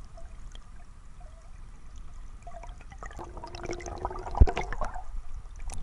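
River water gurgling and sloshing, heard muffled through a camera held at and below the surface, with a dull knock a little past four seconds in.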